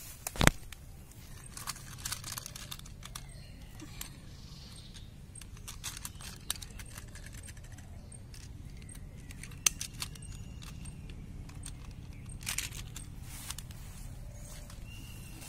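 Scattered sharp clicks and taps of a small plastic toy garbage truck being handled, its hinged parts snapped open and shut. The loudest click comes about half a second in.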